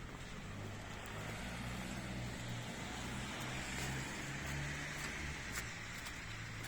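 A car going slowly past, its engine hum coming in about half a second in and dropping away after about five seconds over a steady hiss of tyres and street noise. A few sharp footstep clicks sound near the end.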